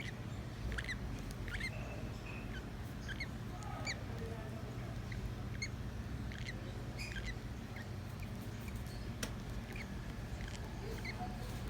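Young African lovebirds chirping in short, high squeaks, irregular and several a second, over a steady low hum.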